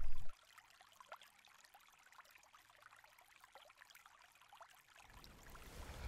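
Faint trickling and rippling of river water, with many small drips and splashes. A louder low rumble stops just after the start and comes back about five seconds in.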